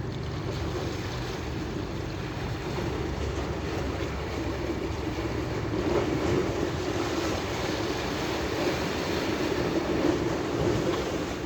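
Steady rush of wind on the microphone and water noise aboard a boat at sea, with a low rumble underneath.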